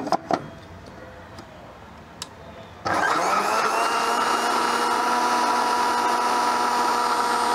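A few clicks as the blender jar and lid are handled. About three seconds in, the Sujata mixer grinder's motor starts suddenly, quickly comes up to speed and runs at a steady pitch, blending a thick papaya-and-banana smoothie thinned with a little water.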